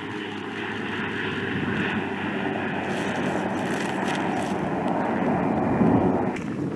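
MQ-9 Reaper drone taking off, its turboprop engine and pusher propeller running steadily and growing slowly louder as it lifts off and climbs. About six seconds in the sound suddenly turns duller.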